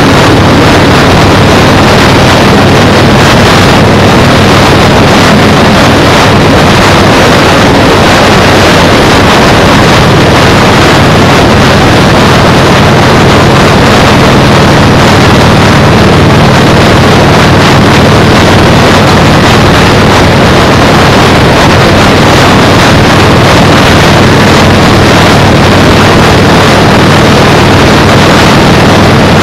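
Wind buffeting a GoPro's microphone on a moving motorcycle, loud and unbroken, with a steady engine drone underneath.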